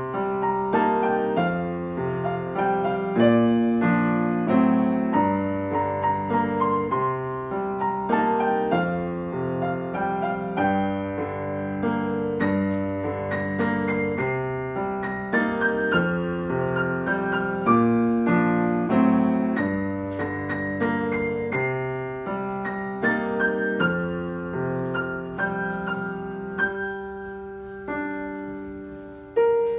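Piano music: a melody over sustained chords, each note struck and fading.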